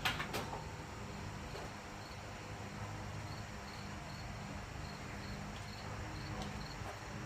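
Crickets chirping steadily, about three short chirps a second, over a low background hum; a sharp click or knock right at the start.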